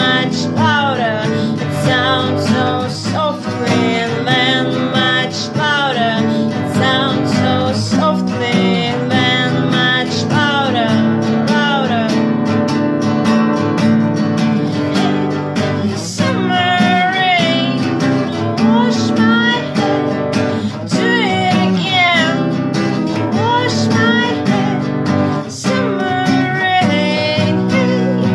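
A song with strummed acoustic guitar and a singing voice carrying wavering melodic lines.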